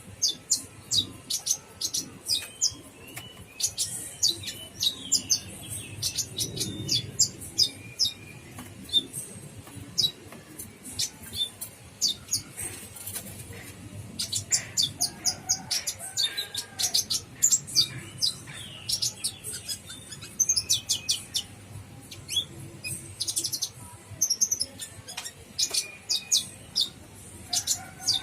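Olive-backed sunbird (kolibri ninja) calling busily: a rapid stream of thin, sharp, high chirps and twitters, some in quick runs.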